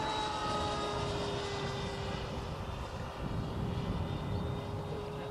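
Electric ducted fan of a de Havilland DH-112 Venom RC jet model, 6S-powered, whining steadily as it flies past, its pitch sagging slightly in the middle.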